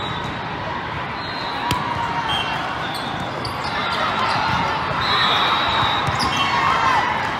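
Echoing noise of a big hall full of volleyball courts: scattered thuds of volleyballs being served, hit and bounced, over the chatter of players and spectators, with short high squeals now and then.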